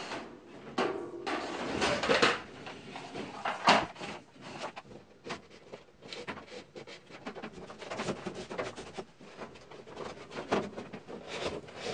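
Red-sheathed number 12 Romex cable being pulled by hand and snaked through the wooden floor joists overhead: irregular scraping, rustling and knocking as the cable drags over the wood.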